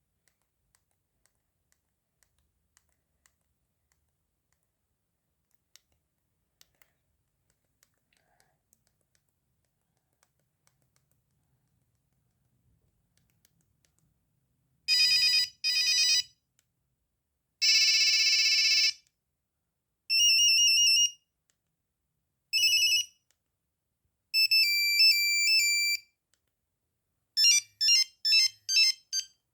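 Faint scattered clicks, then, about halfway through, a Nokia 3310 playing short monophonic ringtone snippets one after another. Each snippet is a second or two of bright beeping tones with brief gaps between them, and the last is a quick run of staccato beeps.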